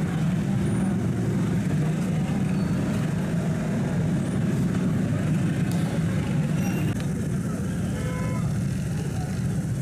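Congested street traffic: a steady low drone of idling and slow-moving motorcycle and auto-rickshaw engines, with a few short horn beeps near the end.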